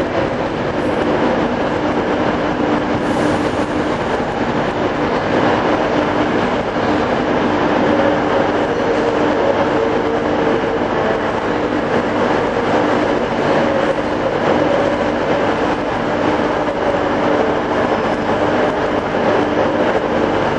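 Class 390 Pendolino electric train moving on the station tracks: a steady rumble of wheels on rail with a low, steady hum.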